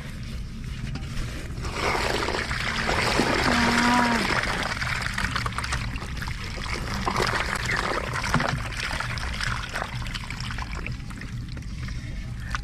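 Water splashing and trickling, swelling about two seconds in and easing after about four seconds, with many small clicks and knocks.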